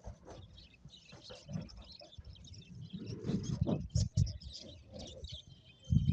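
Budgerigars chirping, with many quick, short, high calls, mixed with low rustling and a few knocks, the loudest of them about four seconds in and near the end.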